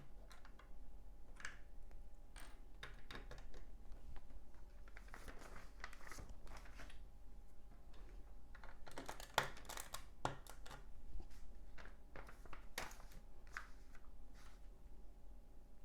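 Plastic LEGO bricks clicking and clattering as pieces are picked up and snapped together: a run of small irregular clicks, with denser rattling clusters around the middle.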